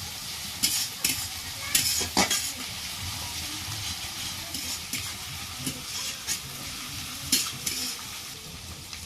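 Chopped onion and garlic sizzling in hot oil in a kadai, stirred with irregular scrapes and clicks of the utensil against the pan.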